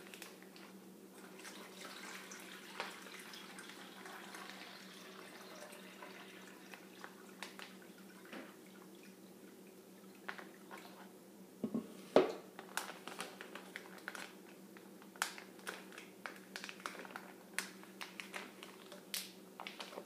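Water pouring in a thin, steady stream from a plastic pitcher into a plastic zip-top bag. About halfway through there is a knock, then scattered crinkles and clicks of the plastic bag being handled.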